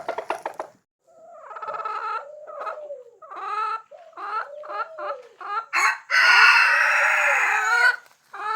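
Chickens clucking in a string of short calls, then a rooster crowing loudly for about two seconds, about six seconds in.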